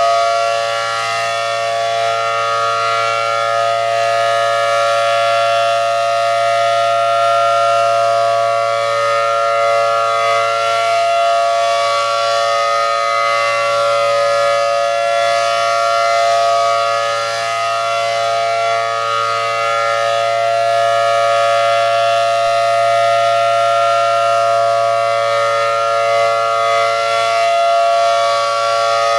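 ACA Allertor 125 rotating electromechanical warning siren with a 10/12-port rotor, sounding a steady Full Alert: a sustained, very loud chord of held tones. The level swells and dips slightly as the directional horn turns.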